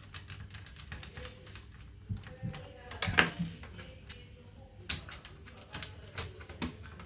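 Irregular plastic clicks and taps as a laptop's case is taken apart by hand, with one louder click about three seconds in.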